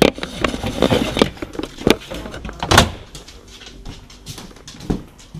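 Handling noise: a busy second and a half of knocks and scraping, then two sharp clicks about two and three seconds in, then scattered light ticks.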